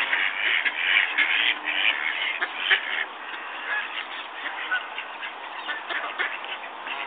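Ducks calling on open water: many short, overlapping calls, thickest in the first three seconds and sparser after.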